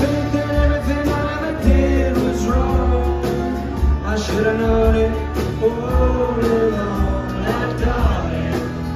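A man singing over two acoustic guitars in a live performance.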